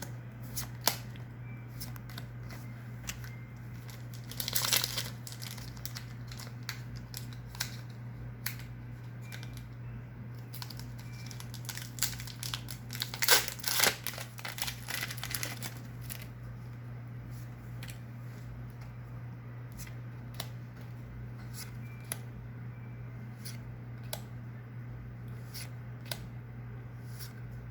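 Foil Pokémon booster pack crinkling and tearing open by hand, in rustling spells about 5 seconds in and again around 13 to 15 seconds, with many small clicks of cards being handled and slid one by one in between. A steady low hum runs underneath.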